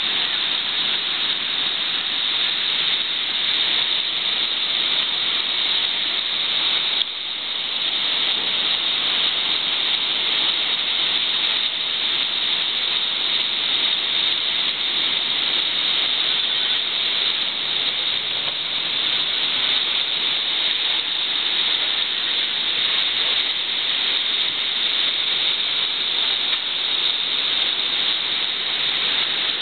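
Steady rushing hiss of a passenger train running along the rails, heard from on board, with a brief dip about seven seconds in.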